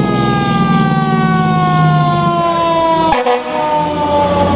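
Fire truck's mechanical Q siren winding down, a slow steady fall in pitch, with the truck's engine running underneath. A brief break in the sound about three seconds in.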